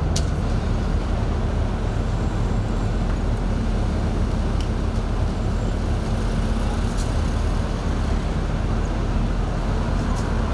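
Steady low engine rumble with a constant hum, and a few faint clicks.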